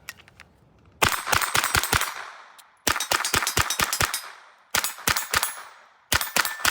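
AR-15 pistol with a CMMG .22 LR conversion kit firing rapid strings of shots. There are four quick strings, each about a second long: the first about a second in, then near three seconds, near five seconds and near the end.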